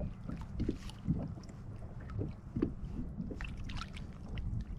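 Water sloshing and gurgling against a small boat's hull under a steady low rumble, with scattered light knocks and taps.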